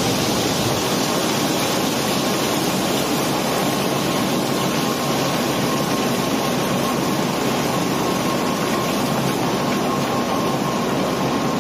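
Steady machinery rumble of barge cobblestone-unloading equipment running continuously, with a faint steady whine entering about two seconds in.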